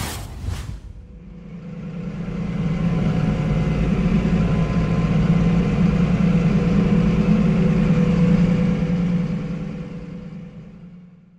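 New Holland T7.230 tractor engine running steadily, heard from inside the cab. It fades in just after a short tail of music and fades out near the end.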